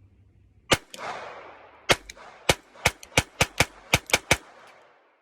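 Taurus TX22 .22 LR semi-automatic pistol firing about ten shots: a single shot, a pause of about a second, then a fast string of shots that quickens near the end.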